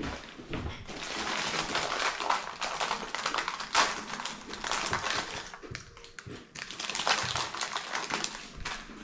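A plastic snack bag being handled and crinkled: a dense crackling in two stretches, with a short lull around the middle.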